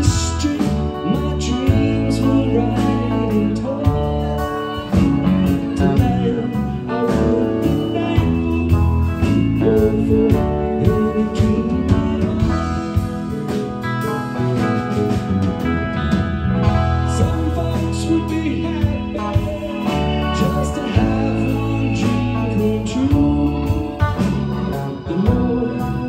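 A live rock band playing: electric guitar, keyboards, bass guitar and drum kit, amplified through the stage sound system.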